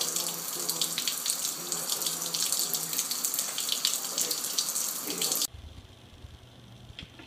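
Kitchen faucet running, its stream splashing into the sink. It cuts off abruptly about five seconds in, leaving only a faint low hum.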